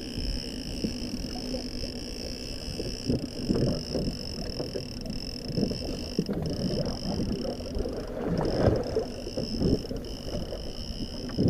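Wind buffeting the microphone and water slapping against a boat's hull, with gusty low rumbles, over a steady high-pitched whine that drops out briefly a couple of times.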